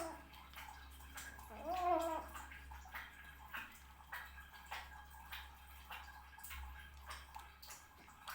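A cat eating: wet chewing and smacking clicks throughout, with one short rising-then-falling vocal 'yum' sound about two seconds in.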